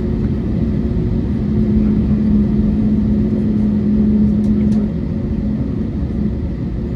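Airbus A321neo cabin noise while taxiing: a steady low rumble of the engines and airflow. A humming tone swells for a few seconds and then drops back about five seconds in.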